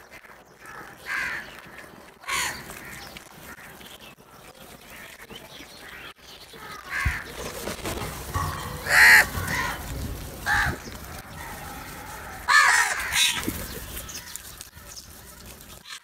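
House crows cawing: a flock calling at irregular intervals, with several separate harsh caws, the loudest a little past the middle and again near the end.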